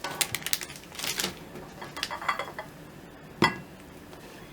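Kitchenware being handled: quick light clicks and clinks near the start, short rustling scrapes, and one sharp knock about three and a half seconds in.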